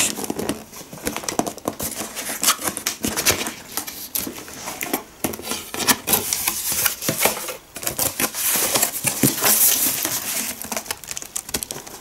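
Unboxing noise: a cardboard box being opened and handled, with plastic packaging bags crinkling and rustling as the contents are pulled out. It comes as a run of short crackles and taps, with a denser rustle a few seconds before the end.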